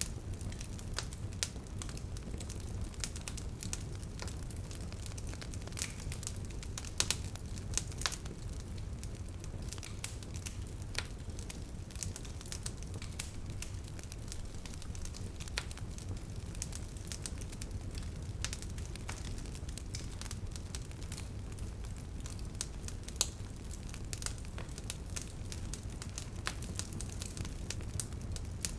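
Wood fire crackling: a steady low rumble of burning with frequent small crackles and a few sharper pops, one about seven seconds in and another near the end.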